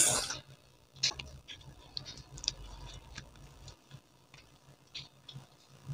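Paper and small craft pieces being handled while gluing: faint, scattered small ticks and soft rustles.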